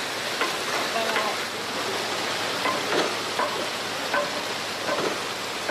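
A steady hissing rush, as of running water, with faint short voices calling out several times.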